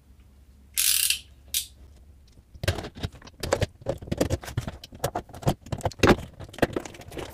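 Packing tape on a cardboard parcel being cut and torn open: a short rip about a second in and another just after. Then a dense run of crackling, scraping and tapping as the tape and cardboard flaps are worked loose.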